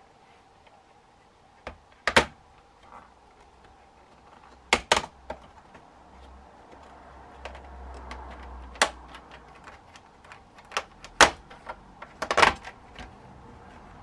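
Scattered sharp clicks and taps of a small Phillips screwdriver and small screws being worked out of a laptop's plastic bottom panel, with handling knocks against the case.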